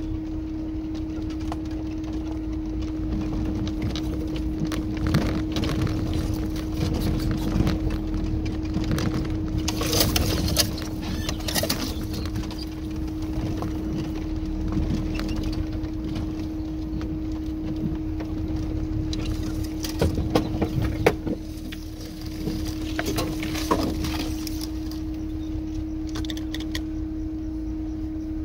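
Inside a Tofaş Kartal car creeping over a rough, overgrown dirt track: the engine runs low with a steady hum, while the body and cabin rattle and knock over the bumps, most thickly about ten seconds in and again around twenty seconds in.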